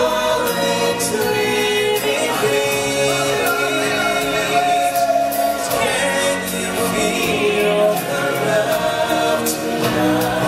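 Live stage-show music: a group of voices singing held notes together over the show's musical accompaniment, with a recurring beat.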